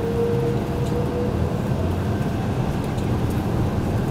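Cabin noise of an Airbus A330-200 airliner on the ground with its jet engines running: a steady low hum under an even rush of noise. A whine fades out about a second and a half in.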